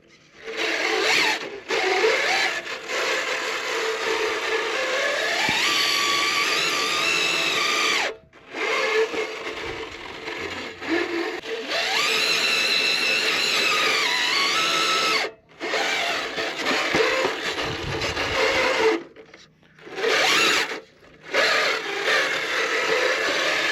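1/10-scale RC crawler's electric motor and gearbox whining under throttle, the pitch rising and falling as the truck is driven. It cuts out briefly several times when the throttle is let off.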